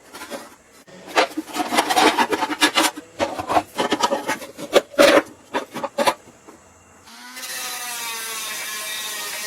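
Rapid, irregular runs of hand scraping strokes over a surface, which stop about six seconds in. About a second later a steady droning sound begins.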